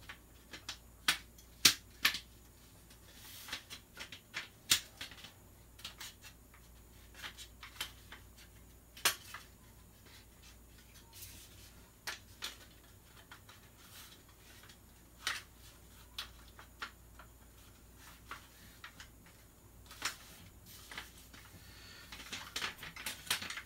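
Scattered sharp clicks and light knocks of handguard halves being pushed and worked onto an airsoft M16 rifle, the bottom pieces not seating easily.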